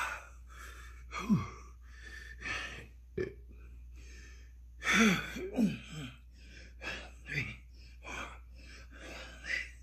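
A man breathing hard through a set of push-ups: heavy exhales and gasps every half second to a second, with a few short grunts that fall in pitch, the loudest about halfway through. He is winded near the end of a high-intensity interval workout.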